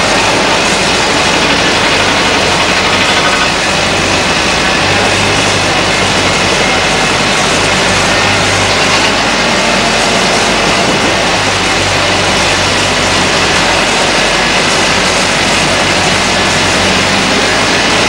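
Liebherr R962 hydraulic crawler excavator's diesel engine running under load while it digs and swings. The engine drone is loud and steady, with its low note swelling and easing at times.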